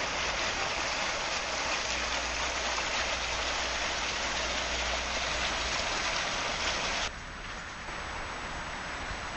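Steady rushing hiss of water, cutting off abruptly about seven seconds in and leaving a quieter outdoor background.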